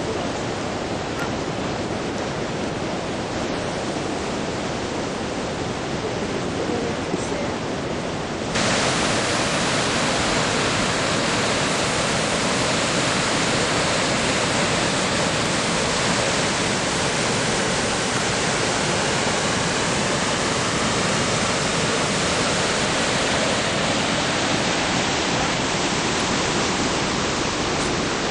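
Rushing river water, a steady rush that suddenly gets louder about eight and a half seconds in.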